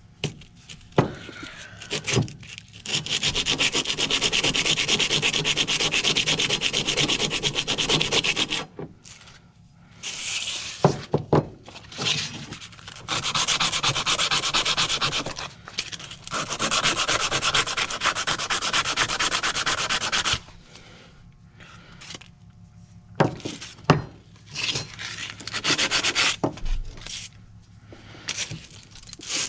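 Sandpaper rubbed by hand over steel in long bouts of quick back-and-forth strokes, 80-grit paper working the steel of a Ridgid 18 pipe wrench. A few sharp knocks fall in the pauses between bouts.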